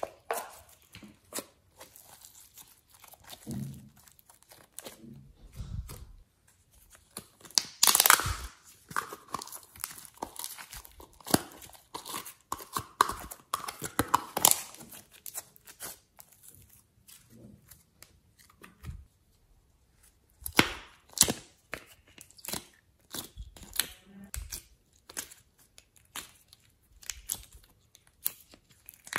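Hands squeezing and pulling apart foam clay and handling small plastic tubs and lids: a close, irregular run of sticky tearing, crackles and clicks, with louder bursts about 8 and 14 seconds in.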